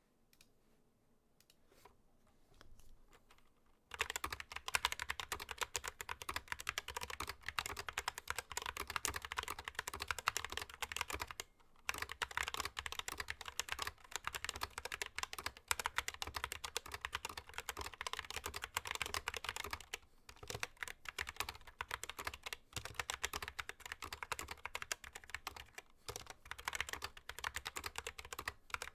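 Fast continuous typing on a Skylong GK61 mechanical keyboard with stock Gateron black optical switches and rubber keycaps: dense rapid key clacks, starting about four seconds in, with a few brief pauses.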